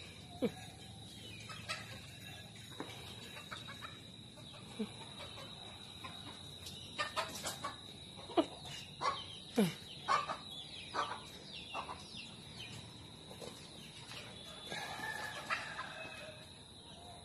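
Short, scattered animal calls, several of them sliding down in pitch, with a quicker run of calls about seven to twelve seconds in.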